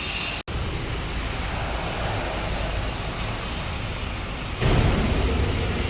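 Steady background rumble and hiss like road traffic. It cuts out for an instant about half a second in, and grows louder from about four and a half seconds in.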